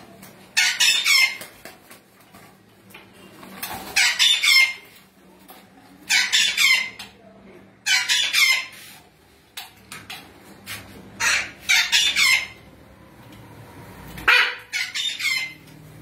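Blue-and-gold macaws squawking: about seven or eight loud, harsh calls, each under a second long, coming at uneven intervals.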